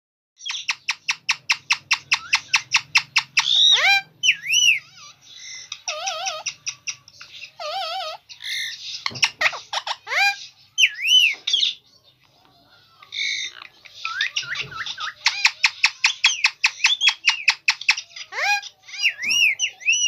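Indian ringneck parakeet calling in bursts. There are fast runs of short chirps, about six a second, at the start and again in the second half, mixed with arching whistles and warbling trills, and a short lull about halfway through.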